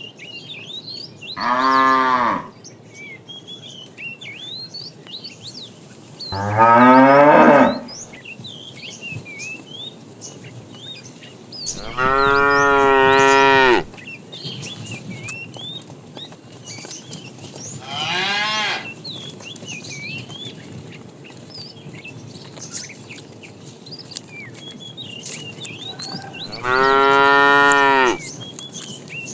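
Cattle mooing: five long moos several seconds apart, the second sliding upward in pitch. Small birds chirp faintly between the moos.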